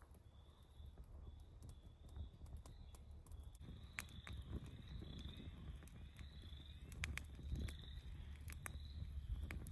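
Outdoor ambience: a faint high chirp repeating about every half second, with scattered sharp clicks and crunches that grow more frequent after about four seconds, over a low rumble.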